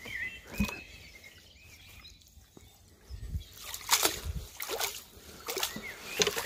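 Landing net plunged and swished back and forth in pond water, sloshing and splashing in a run of about five quick swishes in the second half, as eel slime is rinsed out of the mesh.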